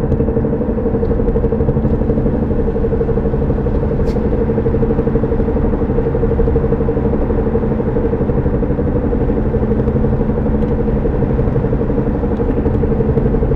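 Car on the move with a steady droning hum over the low road rumble: the driving noise that the owner traces to the driver-side front tyre or drivetrain, one that gets louder with speed and does not change with braking or turning.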